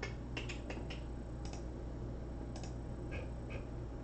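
Scattered clicks of typing on a computer keyboard, a quick run in the first second and then single taps, over a steady low hum.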